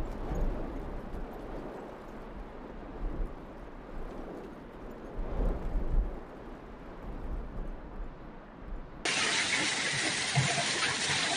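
Uneven low rumbling and buffeting on a phone microphone while a hand handles a heap of hailstones. About nine seconds in, an abrupt cut to a loud, dense, steady hiss of heavy hail and rain coming down.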